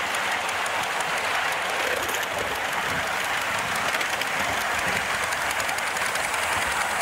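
Steady hiss of steam from a 5-inch gauge live steam locomotive, a model of Leek and Manifold Valley Light Railway engine No. 2 'J. B. Earle'.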